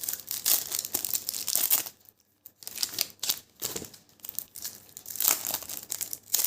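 Transparent plastic trading-card pack wrapper crinkling as it is torn open and handled, in irregular bursts of rustling with a short pause about two seconds in.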